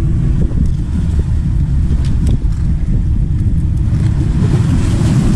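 Strong wind buffeting the microphone: a loud, steady low rumble, with a few faint taps about two seconds in.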